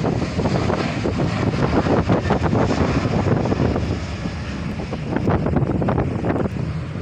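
Jet airliner taking off, its engines at take-off power making a loud, steady, rumbling roar.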